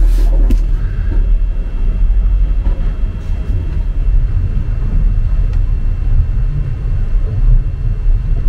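Steady low rumble inside a sailing yacht under way at sea, with a short knock near the start.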